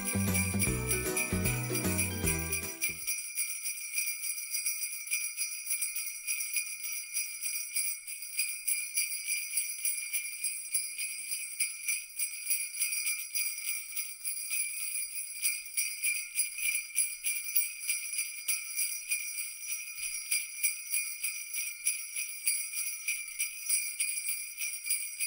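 Jingle bells shaken in a quick, steady jingle, with a Christmas tune and bass playing under them that stop about three seconds in, leaving the bells alone.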